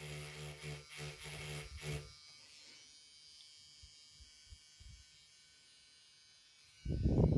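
NorthridgeFix Grinding Pen NF.V2's small motor runs at maximum speed as its fine tip grinds solder mask off a PCB trace, a steady buzz that stops about two seconds in. A few faint ticks follow, then a short loud rush of noise at the very end.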